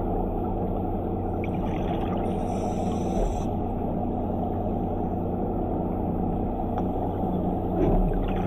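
DiveX Blacktip underwater scooter's electric motor and propeller running steadily underwater, a constant low hum with an even pitch. A short higher hiss comes in about two seconds in.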